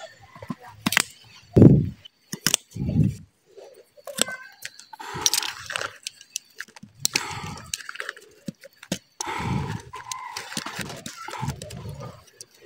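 A blunt utility-knife blade shaving and scraping the cut top of a woody sancang stump, in several short runs of scraping. Scattered clicks and a couple of light knocks come from the tools being handled.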